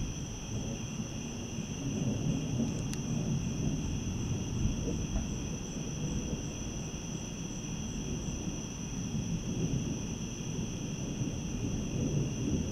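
Distant thunder rumbling low and unevenly, over a steady chorus of night insects holding two high pitches. A single faint click about three seconds in.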